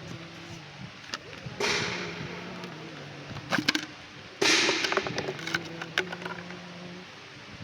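Handling and opening a drill bit set: sharp clicks and two sudden scraping, rustling noises, about a second and a half and four and a half seconds in, each fading over about a second, over a steady low hum.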